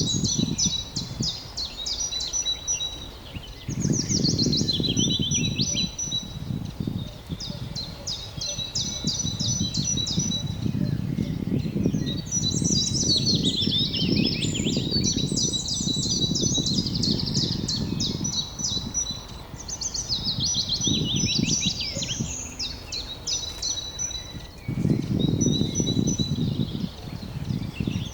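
Several songbirds chirping and trilling in rapid repeated notes, with some steady high whistles. Under them is a low rushing noise that comes and goes in swells a few seconds long.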